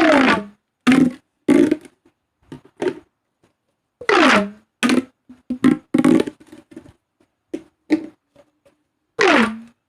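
Plastic pop tubes being stretched and squashed, making crunchy ribbed popping. Three longer pulls, each about half a second with a falling pitch, come near the start, about four seconds in and near the end, with short crunches in between.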